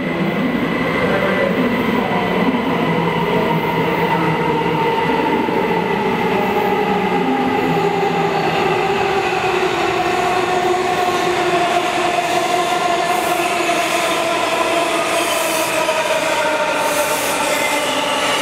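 Washington Metrorail subway train arriving in an underground station: a steady rumble with a motor whine that falls in pitch as the train slows. High squealing from the wheels and brakes joins in during the last few seconds.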